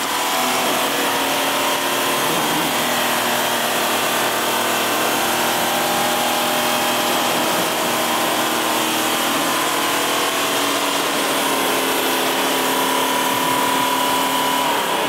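A motor on an off-road vehicle running steadily with a whining drone at a nearly constant pitch.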